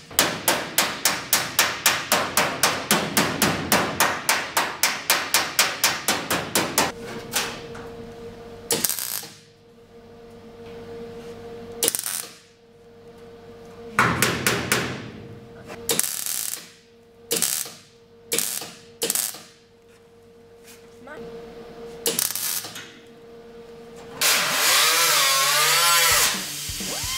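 A MIG welder stitch-welding steel in a fast run of short pulses, about four a second, for roughly seven seconds. It then lays separate single tacks a second or two apart over a steady hum. Near the end a pneumatic grinder starts and runs continuously, its pitch wavering as it bears down on the welds.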